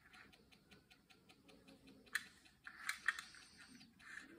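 Light clicks and ticks from a die-cast toy car with opening doors being handled: an even ticking about five times a second, then a sharp click about two seconds in and a cluster of louder clicks around three seconds in.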